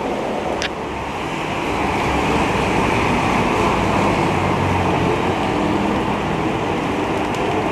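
Heavy rain pouring down, a steady even hiss that grows a little louder after the first couple of seconds.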